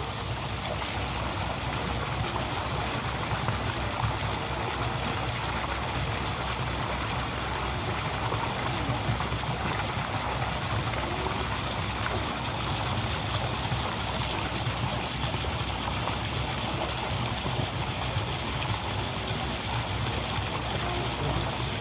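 Several arcing water jets from spouts in a pool wall pouring into the swimming pool, a steady splashing rush of water.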